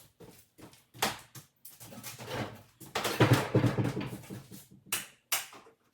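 A string of sharp knocks and clatter, with a longer, louder rattling scrape about three seconds in, from hands and tools working on a kitchen base cabinet and the under-sink fittings.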